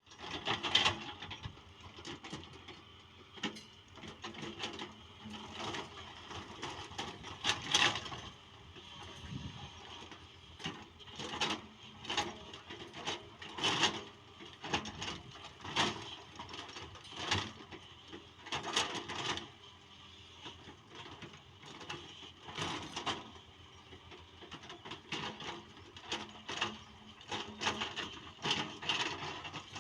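JCB NXT 205 excavator working, with irregular clanks, knocks and creaks coming every second or so.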